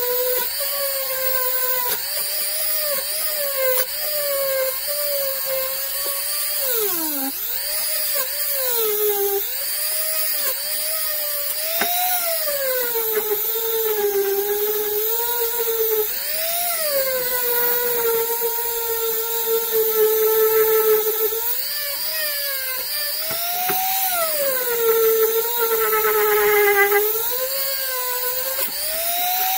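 Cordless rotary tool with a small wire brush bit scrubbing rust off a steel hammer head. The motor whines throughout, and its pitch repeatedly sags and recovers as the brush bears on the metal and is eased off.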